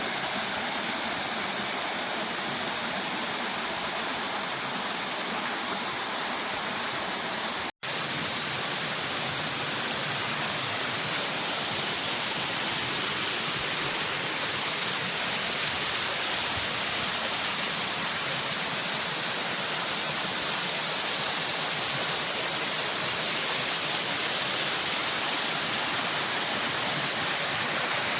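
Waterfall close by: a steady rush of falling water. It cuts out for an instant about eight seconds in, then carries on slightly louder.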